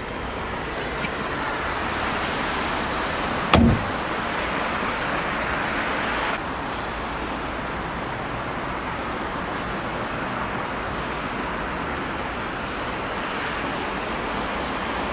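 The Chevrolet Niva's side-hinged rear door is shut with one heavy thump about three and a half seconds in, over a steady rushing background noise.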